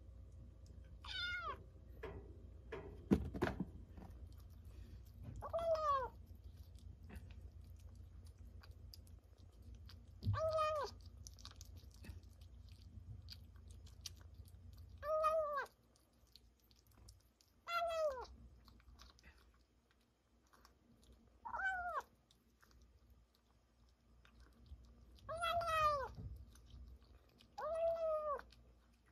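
Young kitten mewing repeatedly: about eight short, high mews a few seconds apart, each dropping in pitch at the end, with chewing between them as it eats wet food and kibble. A sharp knock about three seconds in.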